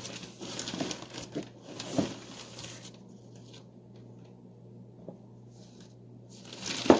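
Rustling and crinkling of a flour bag and scooping of whole wheat flour for about three seconds, then quieter handling with a few light ticks, and a sharp knock near the end.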